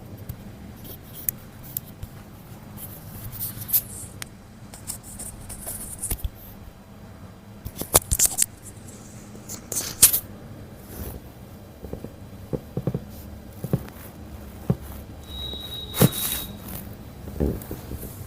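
Handling noises during a manual chiropractic treatment: scattered short clicks, taps and rustles, with a few sharper snaps about eight and ten seconds in.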